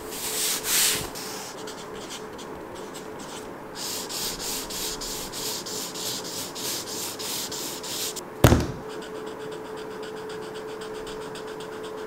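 Felt-tip marker scribbling on paper in quick back-and-forth strokes, with a single thump about eight and a half seconds in.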